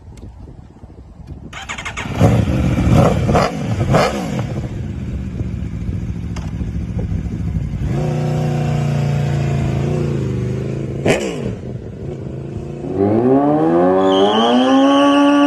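Aprilia RSV4 RF sportbike's V4 engine revved in a few sharp throttle blips, then held at a steady raised speed with one more quick blip. Near the end a Kawasaki Ninja sportbike engine climbs steadily in pitch and holds at high revs for a burnout.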